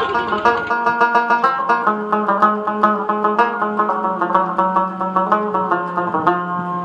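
Background music: a quick plucked-string melody over a held low note.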